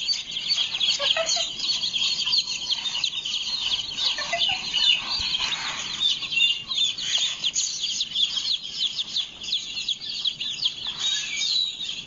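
A crowd of baby chicks peeping: many short, high-pitched peeps overlapping without a break.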